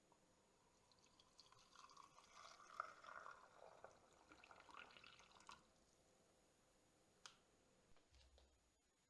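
Faint sound of water pouring or trickling for a few seconds, followed a little later by a single soft click.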